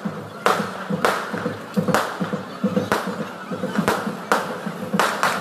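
Fireworks going off: a string of sharp bangs, about one every half second to a second.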